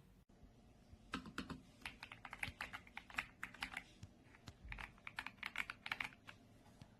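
RK Royal Kludge S98 mechanical keyboard being typed on: a quick run of keystrokes starting about a second in, with a short pause midway.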